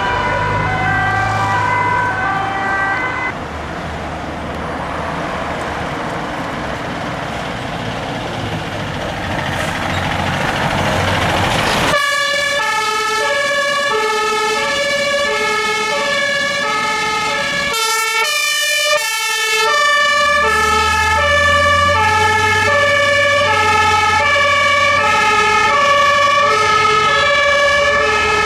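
Fire engine two-tone siren alternating steadily between two pitches, over a truck engine. A little over three seconds in it gives way to a rushing noise that builds for several seconds, then the siren returns louder about twelve seconds in, with a short break near the end.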